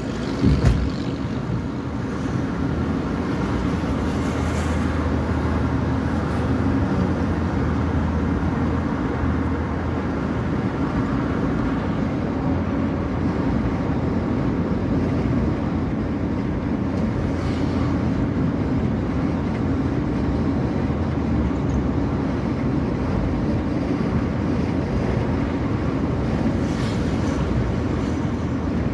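Steady in-cabin noise of a car driving at road speed: low engine hum and tyre rumble. There is a short thump less than a second in.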